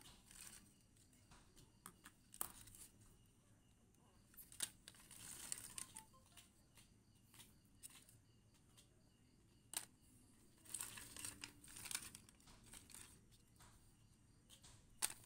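Faint clicking and rustling of dry agarwood chips being handled, sifted and lifted from a pile, with scattered sharp clicks and two longer rustles, one about a third of the way in and one about three quarters through.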